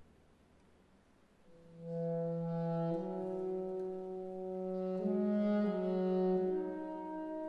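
Symphony orchestra's wind section: after a near-silent pause of about a second and a half, long held notes enter one after another and pile up into a sustained chord that swells and shifts.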